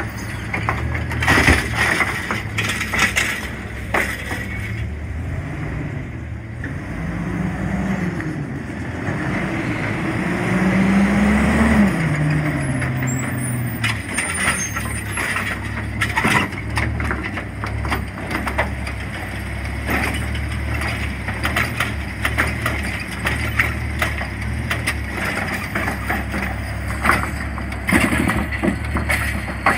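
Diesel engine of an automated side-loader garbage truck running, its revs rising and falling twice as the hydraulic lift arm works, with scattered clunks and knocks from the arm and the plastic carts.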